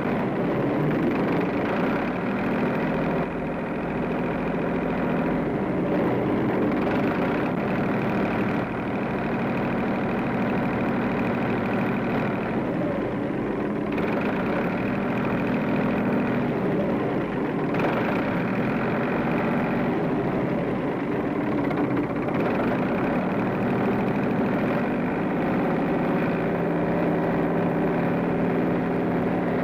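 Several farm tractor engines running together while pulling tillage implements through a field. The engine note shifts up and down every few seconds as they work.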